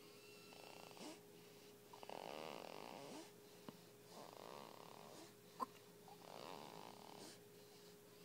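A baby snoring quietly, four slow snores about two seconds apart, each lasting about a second. A single sharp click comes about five and a half seconds in.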